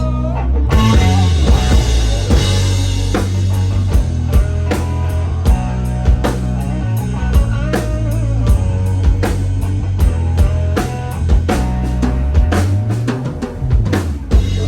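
Rock song played by a band, an instrumental stretch with no singing: a drum kit comes in about a second in with a cymbal crash and keeps a steady beat over bass and guitar.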